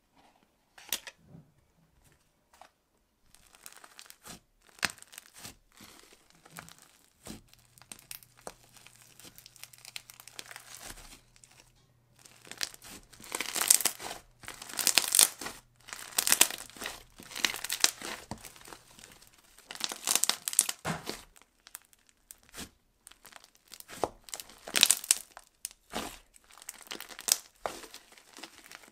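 Hands squeezing and pulling apart white shaving-foam bubble slime, its trapped air crackling and popping in bursts. The bursts are sparse for the first dozen seconds and come thick and loudest in the second half. Some of the air has already escaped, so it does not sizzle much.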